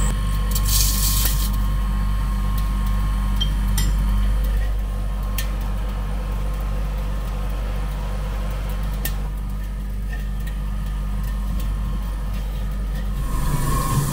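Cotton candy machine running with a steady low motor hum as its spinner head throws out sugar floss, with a brief hiss about a second in as the sugar goes into the spinning head.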